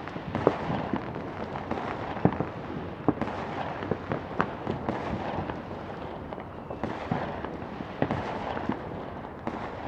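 Battle ambience of distant gunfire: irregular sharp gunshots, several a second, over a continuous rumbling background of far-off fighting.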